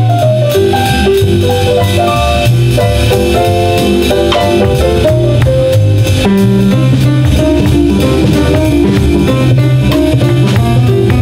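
Live band playing an instrumental passage: stage piano runs over bass and a steady drum-kit beat, with electric guitar.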